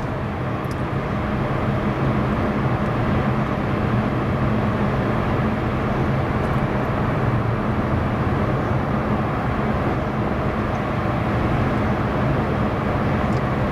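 Cabin noise inside a car with a 2.0 petrol engine cruising in fifth gear at a steady 2000 rpm: a steady engine hum under a constant rush of tyre and road noise.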